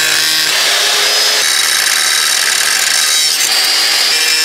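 Angle grinder running under load, its disc grinding down a rusted-out steel stud on a car's underbody. The sound is a steady, loud grinding noise with a high whine that shifts in pitch a few times as the pressure changes.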